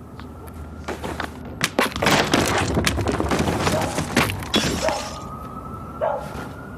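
Wooden barrels and planks breaking and clattering: a quick run of sharp wood cracks and knocks, densest through the middle, with a faint rising tone underneath.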